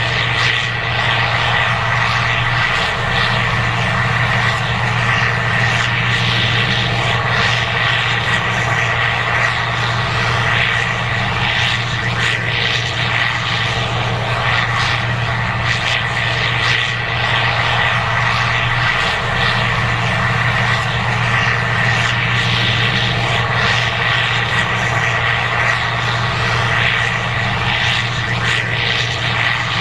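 Case IH 2188 Axial-Flow combine running steadily while harvesting corn: a constant diesel engine drone with a steady high whine over the rush of the threshing machinery.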